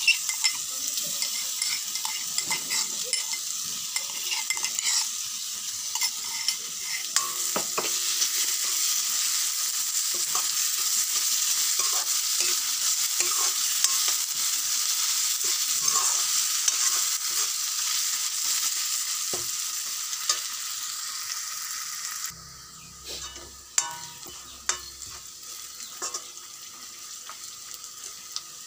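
Sliced onions, chillies and minced garlic sizzling in hot oil in a metal wok while a metal spoon stirs them, scraping and clicking against the pan. The sizzle drops away abruptly about three-quarters of the way through, leaving mainly the spoon's scrapes and clicks.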